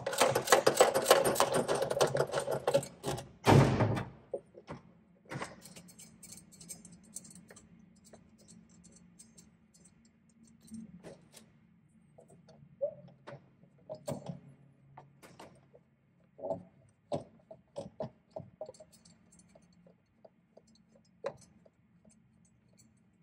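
Ratchet wrench with a short 13 mm socket clicking rapidly for about three seconds as it backs off a steel mounting nut, then a single thump. After that come scattered light metal clicks and taps as the loosened nuts are handled, over a faint steady low hum.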